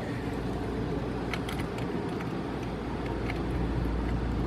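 Steady low background rumble with a few light clicks of small parts being handled.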